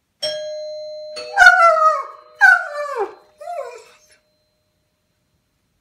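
A two-note doorbell chime rings. About a second in, a German Shepherd howls at it in three calls, each falling in pitch, the last one shortest.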